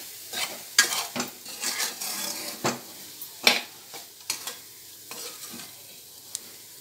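A spoon stirring and scraping grated coconut in a pan, with sharp knocks against the pan, loudest about a second in and again midway, over a light sizzle of ghee as the coconut sautés on a low flame.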